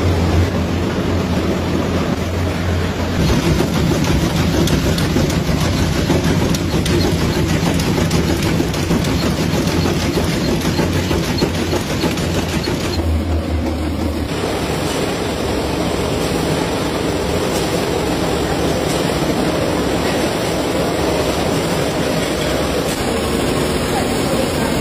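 Matchstick-making machinery running: a loud, steady mechanical clatter of machines and wooden match splints. The sound changes abruptly about three, thirteen and fourteen seconds in.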